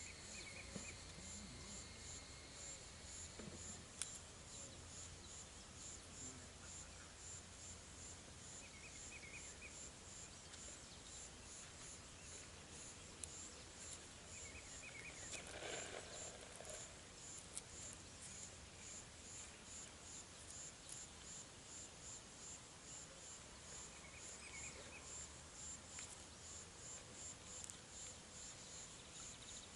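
Faint outdoor ambience: an insect chirping in a steady, high-pitched pulse several times a second, with a few brief higher chirps now and then.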